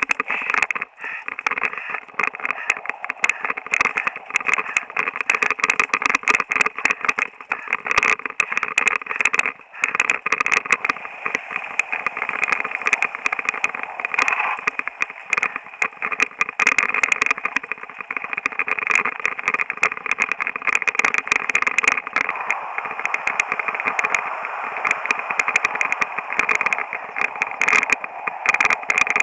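A mountain bike riding fast over a rough dirt trail, heard through a rider-mounted camera: a continuous rattling clatter with many sharp knocks from the bumps.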